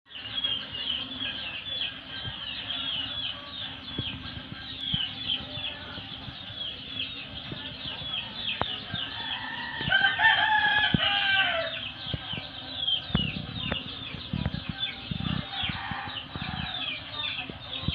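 A rooster crowing once, about ten seconds in, a call of about two seconds that drops at its end, over continuous high chirping of birds.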